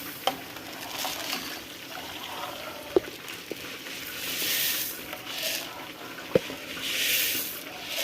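Rice being stirred into a pot of bubbling corn, vegetables and water: a sizzling hiss that swells as the spoon works, with three sharp clinks of the spoon against the pot.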